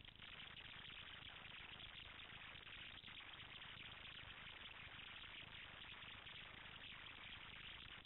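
Near silence: a steady faint hiss with no distinct sound.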